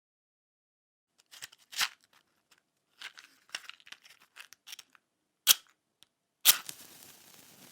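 Fire crackling: scattered sharp pops and snaps with silent gaps between them. There is a loud single pop about five and a half seconds in, and near the end another loud pop followed by a soft hiss.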